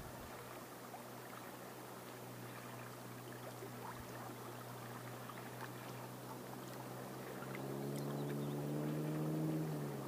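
An engine running steadily in the distance, over a steady rush of rippling water. The engine grows louder from about seven seconds in, its pitch rising a little and then dropping near the end.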